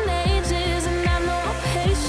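Background electronic music with a steady beat of deep, falling bass-drum hits and a melodic line over it.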